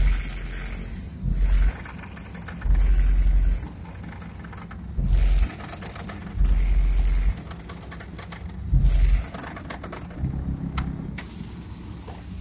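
Very deep bass notes from two 18-inch Resilient Sounds Platinum subwoofers, pulsing every second or two, with the pickup's front bumper and chrome trim rattling and buzzing in time with the bass.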